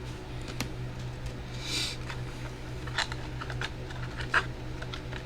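Trading cards and their plastic sleeves and rigid top loaders being handled: a short rustle about two seconds in and scattered light clicks and taps, the sharpest about four and a half seconds in.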